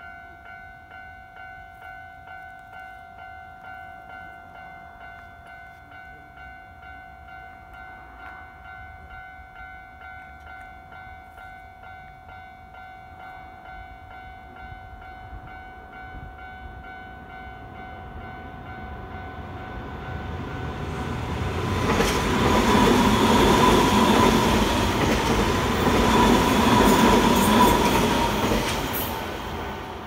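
Japanese level-crossing warning bell ringing steadily in an even, repeating tone. From about two-thirds of the way in, a Nankai Koya Line train approaches and passes over the crossing, its running noise swelling to drown out the bell before fading near the end.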